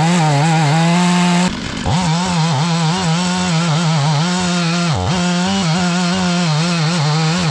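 Two-stroke chainsaw on an Alaska chainsaw mill running at full throttle while ripping a log lengthwise, its pitch dipping briefly again and again as the chain bogs under load in the cut. A short break in the sound comes about a second and a half in.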